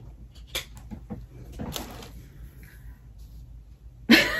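Scattered rustling and handling noises as a t-shirt is picked up out of a plastic-lined box and shaken open, with a few short sharp rustles. Near the end a voice breaks in loudly.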